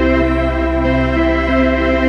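Slow background music: long held chords over a steady bass note.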